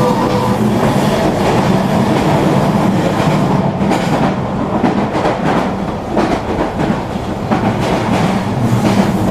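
Train running along the track with a loud rumbling clatter, following a whistle-like tone that cuts off about half a second in.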